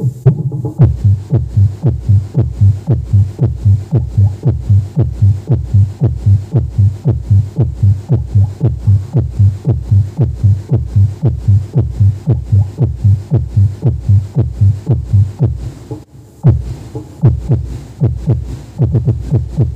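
Bass-heavy test music with a steady kick-drum beat, about two and a half beats a second, played loud through a 15-inch subwoofer in a scoop bass cabinet driven by an Ace LX20 power amplifier. The beat drops out briefly about sixteen seconds in, then resumes.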